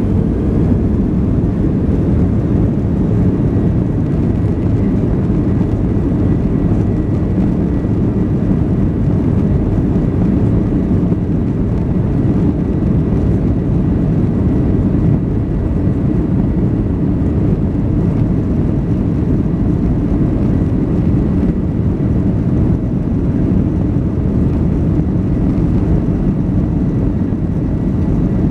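Steady, loud rumble of a Boeing 737-700's CFM56-7 jet engines and airflow, heard from inside the passenger cabin, with a faint steady high whine above it.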